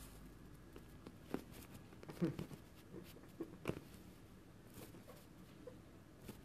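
Faint, scattered clicks and light handling noise from a hand-held phone, a handful of sharp taps between about one and four seconds in, over a quiet room.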